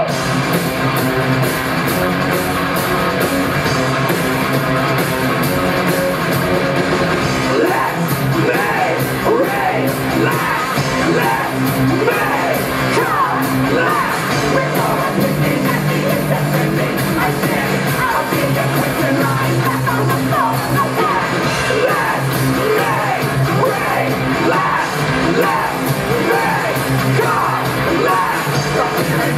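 Live rock band playing: bass guitar and drums under several singers singing and shouting, with the reverberation of a large room.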